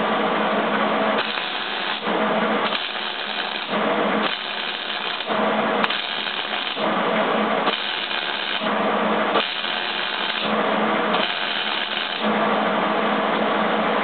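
Millermatic 175 wire-feed MIG welder arc crackling and buzzing as steel leg is welded to a steel base plate, laid down in a run of short bursts of about a second each with brief pauses between, as in stitch welding. A steady low hum runs underneath.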